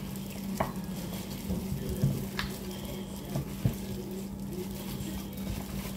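Seasoned chicken sizzling in a pan, an even hiss, with a few sharp clicks and a steady low hum underneath.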